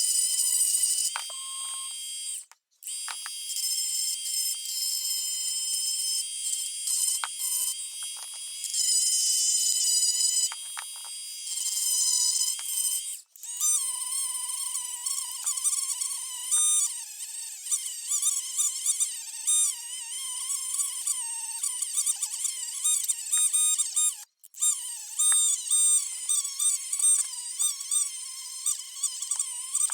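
High-pitched whine of a small high-speed power tool, its pitch wavering as it is worked against the metal of the pliers. It cuts off abruptly three times.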